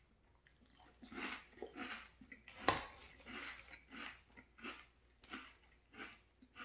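Close-miked chewing of maple cinnamon Frosted Flakes in milk: a steady run of crunchy chews, two or three a second. One sharp click, the loudest sound, comes about two and a half seconds in.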